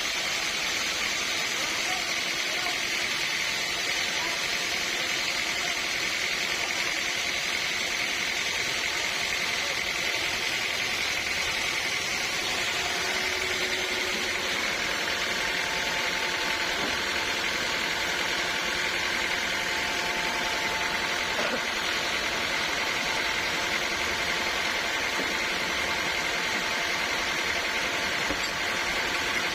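Sawmill saw running steadily through a teak log, a constant machine drone with a steady high whine.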